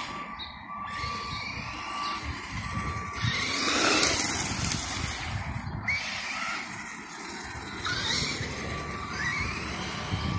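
Traxxas Stampede RC monster truck's electric motor whining in short bursts that rise in pitch as it accelerates, four or so times, over a background of street traffic. The loudest moment is a rushing noise about four seconds in.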